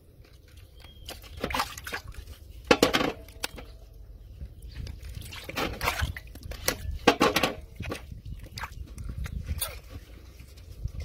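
Water sloshing and splashing in a metal basin as a whole raw chicken is handled and cut in it, in irregular splashes a second or two apart over a low steady hum.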